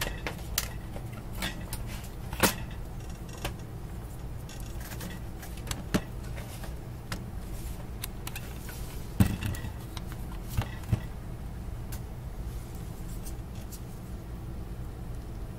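Scattered light clicks and knocks from handling a handheld digital multimeter and its test probes on a workbench, over a steady low hum.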